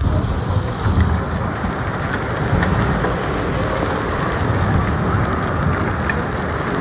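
Heavy rain mixed with vehicle noise on a road, over a steady low rumble.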